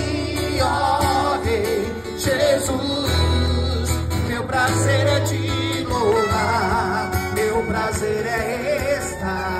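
A live worship song: a man singing to guitar, amplified through a PA speaker.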